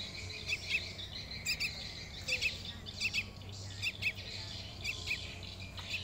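Sooty-headed bulbul fledglings calling: repeated short, high chirps, mostly in quick pairs, about once a second, the begging calls of hand-reared young birds.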